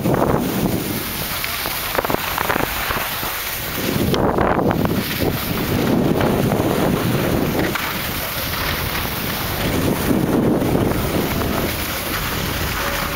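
Wind buffeting a handheld camera's microphone during a downhill ski run, swelling in long surges, with skis sliding over packed snow.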